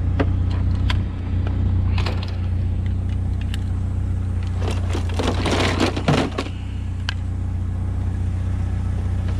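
Metal and plastic junk knocking and clattering as it is rummaged through and pulled out of a bucket of scrap, with the busiest clatter between about five and six and a half seconds in. Under it runs the steady low hum of an idling vehicle engine.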